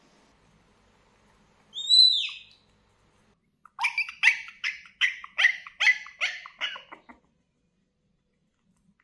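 A young puppy crying: one high whine that rises and falls about two seconds in, then a run of about ten quick, falling yelps over some three seconds.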